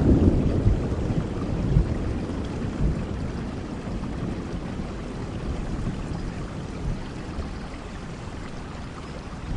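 Steady rain falling, with a low roll of thunder rumbling at the start and slowly dying away.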